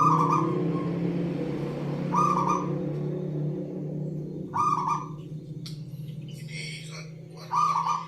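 Zebra dove (perkutut) cooing: four short, pitched coos, each about half a second long, coming every two to three seconds over a steady low hum.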